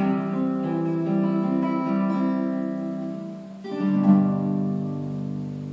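Nylon-string classical guitar played unaccompanied: a few picked notes ring and fade, then a final chord is strummed about four seconds in and left to ring out.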